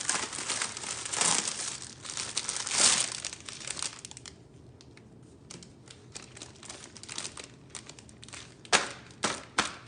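Plastic packaging crinkling and tearing as a tablet case is unwrapped, loudest in the first three seconds and quieter after that. Near the end come three sharp clicks.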